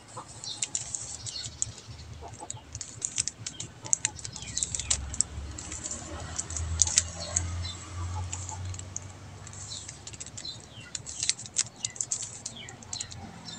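3x3 Rubik's cube being twisted by hand through an algorithm: a quick, irregular run of plastic clicks and clacks as the layers turn and snap into place.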